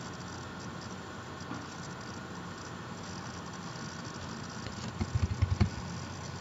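A quick run of computer keyboard keystrokes about five seconds in, typing a word into a browser address bar, over a steady faint background hiss.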